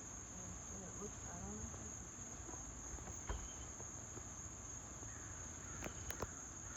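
Steady, high-pitched chorus of insects droning in the background.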